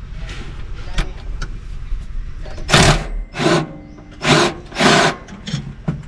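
A cordless ratchet runs in four short bursts of about half a second each, turning a hydraulic-line fitting. Light metal clicks of handling come before the bursts.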